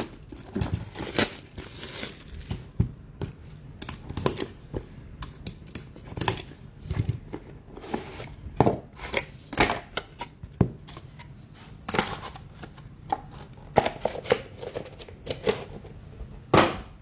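Trading card packs and cards being opened and handled: irregular crinkling, rustling and clicking of wrappers, cards and plastic top loaders, with a louder crackle near the end.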